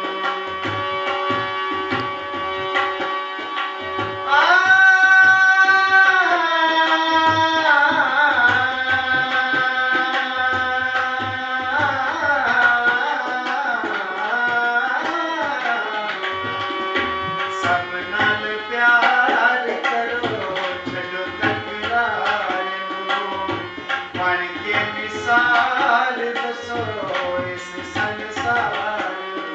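A Nirankari devotional song: a man sings over harmonium chords while a tabla keeps a steady rhythm with deep bass strokes. About four seconds in he holds a long high note.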